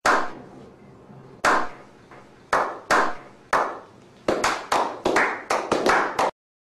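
Slow clap by a small group of men: single hand claps at first, more than a second apart, quickening to several claps a second, each with a short echoing tail. It cuts off suddenly near the end.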